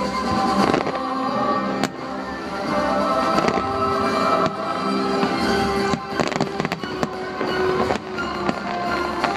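A fireworks display going off, with several sharp bangs scattered through, over accompanying music with long held notes.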